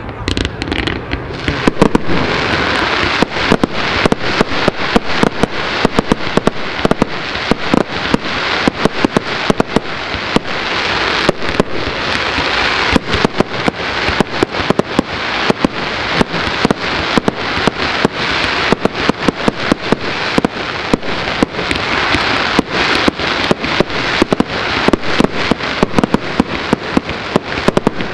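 Fireworks display: a rapid, unbroken barrage of bangs and pops from shells and comets being fired and bursting, over a continuous crackling rush. It is a little sparser at first and becomes dense from about two seconds in.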